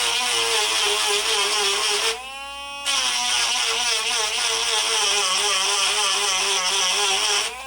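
Dremel rotary tool sanding wooden dowel plugs flush with a gun stock. Its high motor whine wavers and dips as it bites into the wood, with a grinding hiss. It is lifted off briefly about two seconds in, its pitch rising as it runs free, then pressed back to the wood.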